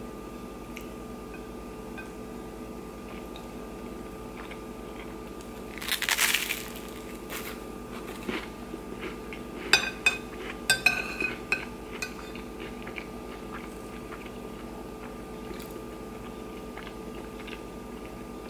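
Metal spoon scraping and clinking against a ceramic plate while scooping up corned beef hash, with a cluster of sharp, ringing clinks a little past halfway through. A brief loud crunch comes about six seconds in.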